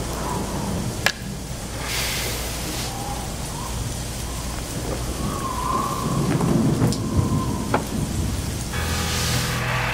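Storm sound effects on a music video's soundtrack: steady rain with thunder rumbling, swelling to a low roll past the middle, and a few sharp cracks.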